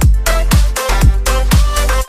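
Electronic dance music with a steady kick drum, about four beats a second, over a held bass line.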